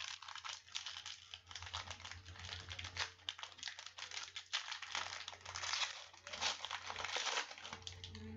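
Crinkling and crackling of a trading-card pack wrapper as it is torn open and handled, with cards rustling.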